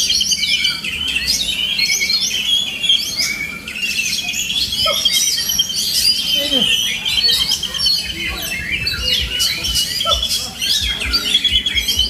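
Oriental magpie-robin (kacer) singing continuously: a busy run of sharp chirps and whistles broken by several fast rattling trills.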